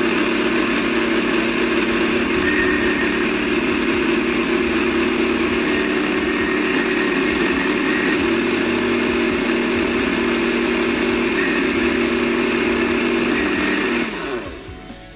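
Russell Hobbs Nutri Boost personal blender's motor running steadily, blending a berry smoothie, then cutting off about fourteen seconds in and spinning down.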